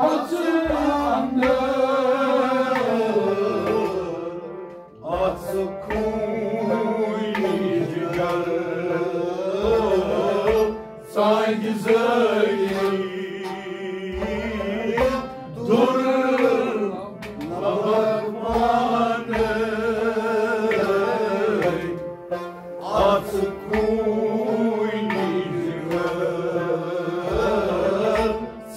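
Kashmiri Sufi devotional song: a voice singing long, gliding melodic lines over steady tabla strokes and instrumental accompaniment.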